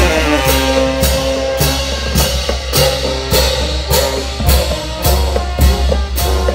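Marching band playing as it passes: bass drums and hand cymbals strike a steady beat, just under two a second, under held notes from saxophones and brass.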